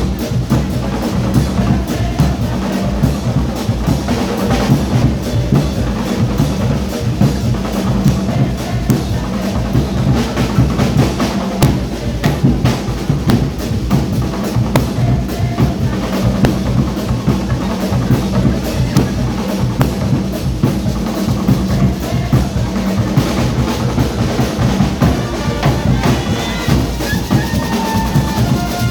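Carnival street band drumming: many drums, bass drums among them, beating a fast, steady rhythm.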